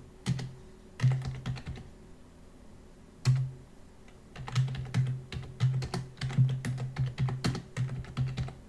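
Computer keyboard typing: runs of quick keystrokes as a passphrase is typed and then re-typed, with a single harder keystroke about three seconds in.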